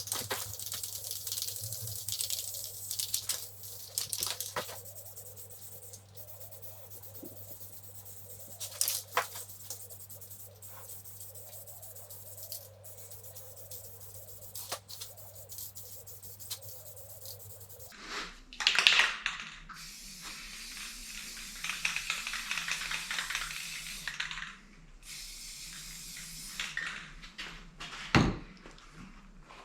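Aerosol can of primer spraying, a hiss that comes in repeated bursts.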